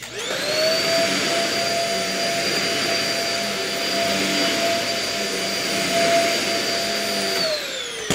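Dyson ball upright vacuum cleaner switched on and vacuuming carpet, its motor whine rising quickly to a steady high pitch. It is switched off about seven seconds in, and the whine falls as the motor spins down.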